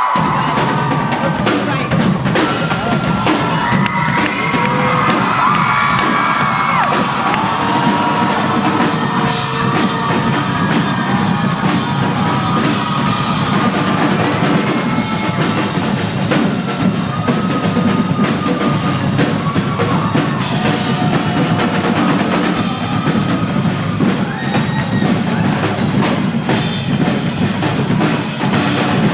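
School percussion ensemble playing a drum piece, with dense, steady drumming.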